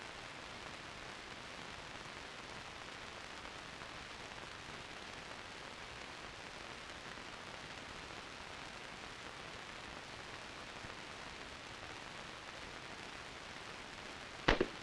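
Steady hiss of an old film soundtrack, then near the end a single sharp rifle shot.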